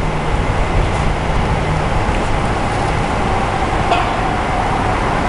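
Steady rush of road traffic crossing the bridge, a continuous tyre-and-engine noise.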